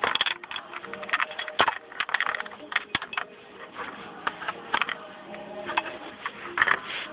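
Handling noise: irregular clicks, taps and knocks of small plastic toys and toy pieces being moved about and set down close to the microphone.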